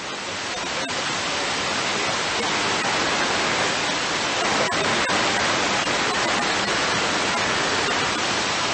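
Steady hiss of radio static from an airband receiver, with no voice coming through. It swells over the first second, then holds steady.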